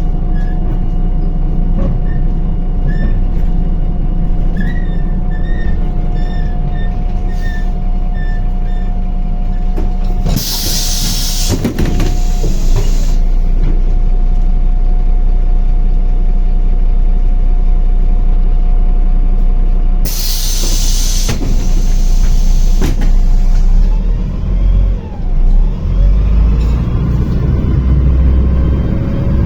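MAZ-105 city bus engine running with a steady whine, broken by two loud hisses of compressed air, one about ten seconds in and one about twenty seconds in. Near the end the engine note deepens and rises as the bus pulls away.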